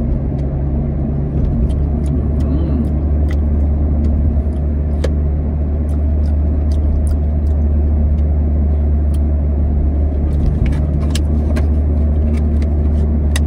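Steady low rumble of a moving car heard from inside the cabin. Scattered small sharp clicks run over it, from the plastic grape clamshell being handled.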